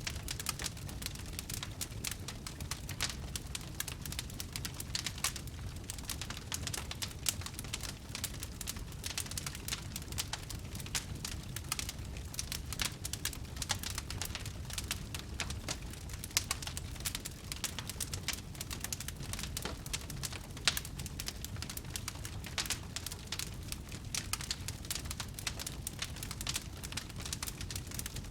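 Fire crackling: a dense, irregular run of small pops and snaps over a low, even rumble.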